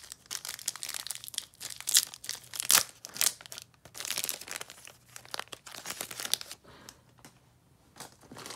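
Panini NBA Hoops trading-card pack wrapper being torn open and crinkled in the hands: a run of sharp crackles, loudest about two and three seconds in, that dies down to a few faint ticks after about six and a half seconds.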